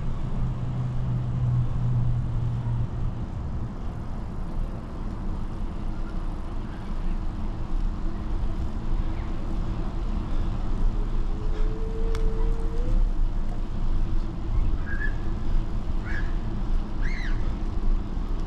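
Steady low rumble of wind and tyre noise while riding a bicycle along an asphalt bike path. A few short high chirps come near the end.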